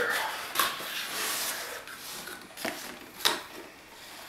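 Cardboard packaging being handled as the box is opened and its folded inner flaps lifted. Rustling and scraping of card, with a few sharp taps: one about half a second in, two more near three seconds.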